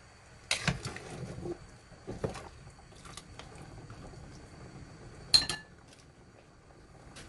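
Metal ladle knocking and clinking against a metal cooking pot of curry while stirring, a few separate knocks. The loudest is a sharp clink that rings briefly, about five seconds in.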